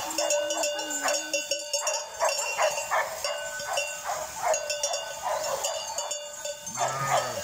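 Many bells on a passing flock of sheep clanking and ringing irregularly, several at once, with the odd sheep bleat.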